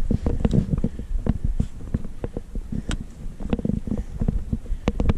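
Irregular clicks and knocks of trekking poles and boots on rock during a scramble, over a low rumble of wind on the microphone.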